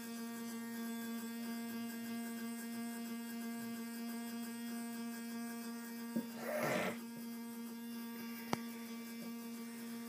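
Small electric motor of a homemade Lego ceiling fan running at medium speed, giving a steady, even hum. A short rustle comes about six and a half seconds in, and a single sharp click about two seconds later.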